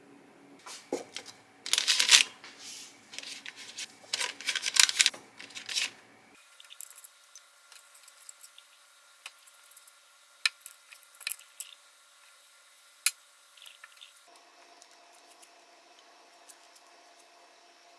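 Paper crinkling and rustling in loud bursts for about the first six seconds, then a few light clicks and taps as a silicone brush spreads egg wash over pastries on parchment paper.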